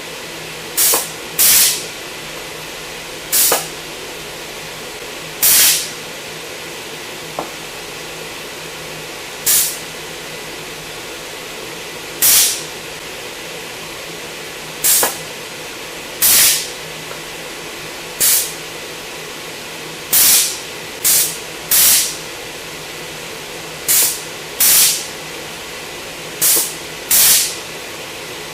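Short, loud blasts of hissing air, about twenty at irregular intervals, over the steady hum of the machining center.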